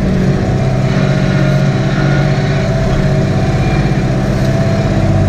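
Tractor diesel engine running steadily under load while pulling a plough, heard from inside the cab as a loud, even drone with a constant whine above it.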